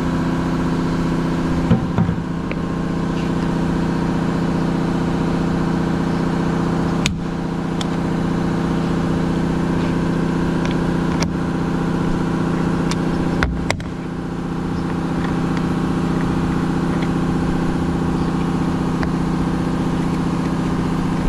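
A vehicle engine idling steadily, with a few sharp clicks and taps of hand work on a car door's trim panel.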